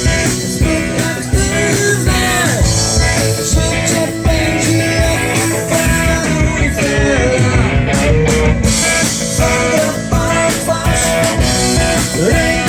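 Rock music played by a band: guitar over a steady beat, with singing.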